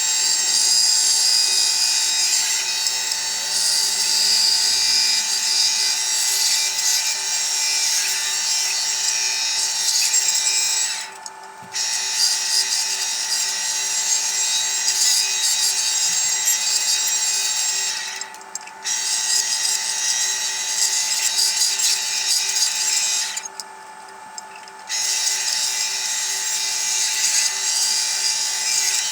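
Bandsaw running and cutting wood, a dense high rasp over the steady hum of the motor; the cutting noise stops briefly three times while the saw keeps running.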